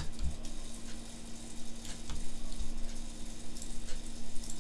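A few faint computer-mouse clicks, spaced irregularly, over a steady low hum.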